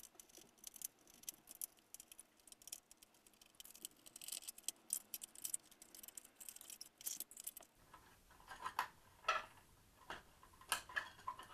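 Faint, rapid clicking and ticking of a small screwdriver working screws out of a projection TV's optical assembly, with a few sharper, separate clicks after about eight seconds as the loosened parts are handled.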